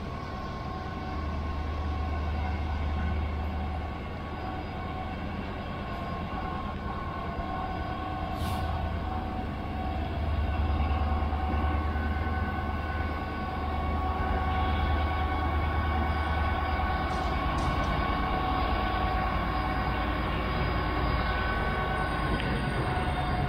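Class 66 diesel locomotive's two-stroke V12 engine running as it moves a slow rake of covered hopper wagons, with a steady low rumble and a steady engine drone with a whine in it. It grows louder about halfway through as the locomotive comes close.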